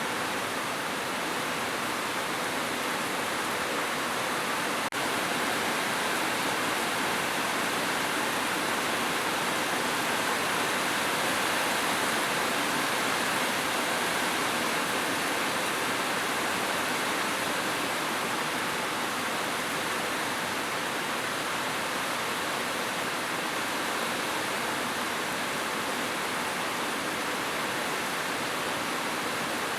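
Heavy rain falling steadily on a roof, an even downpour without thunder.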